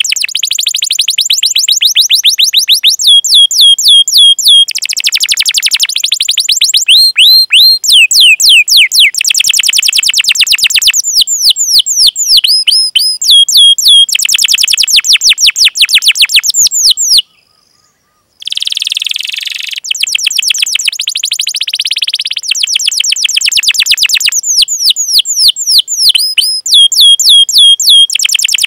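Domestic canary singing a fast, dense song of rapid repeated chirps and rolling trills, high-pitched, with a break of about a second just past the middle.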